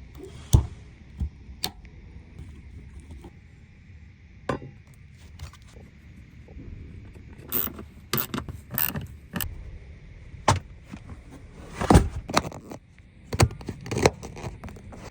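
Scattered metal clinks, knocks and scrapes of hand tools and parts during a fuel pump replacement on a car, over a low steady hum. The knocks come in a busy cluster in the second half.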